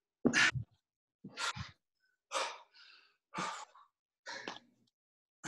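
A man exhaling hard about once a second, five puffs in all, some followed by a quick intake of breath, each in time with a rep of a seated tuck-up exercise.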